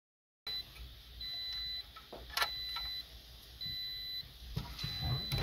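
Car's electronic warning chime beeping over and over, one beep about every 1.2 s, each about half a second long. Light metallic clicks and handling noise come from the head unit's steel chassis and mounting bracket being handled.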